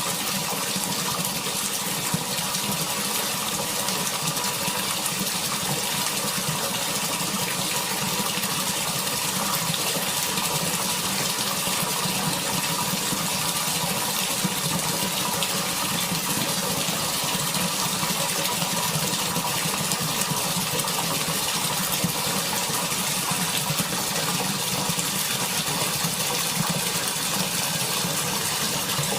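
Water pouring steadily into a bucket, a constant splashing stream that neither builds nor fades.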